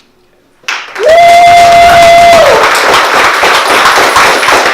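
Audience applause breaking out about a second in, with one person giving a loud held cheer that rises at the start and falls away after about a second and a half; the clapping goes on steadily.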